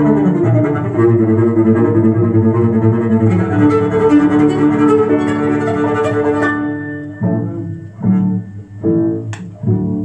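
Cello music from a vinyl record of cello and bassoon pieces, playing through hi-fi loudspeakers in the room. Sustained bowed notes run until about six and a half seconds in, then give way to four short, separate notes that get quieter near the end.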